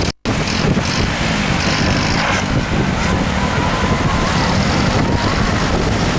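Loud, steady rush of fast-flowing floodwater pouring across a road, with a motorcycle engine running close by.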